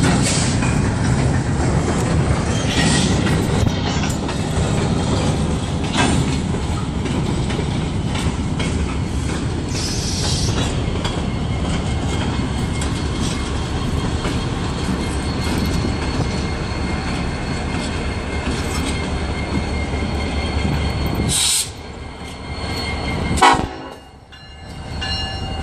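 KCSM freight train's gondola cars rolling past, a steady rumble and clatter of steel wheels on the rails. Near the end the rumble drops off suddenly, with a couple of short sharp noises, as the rear diesel locomotive goes by.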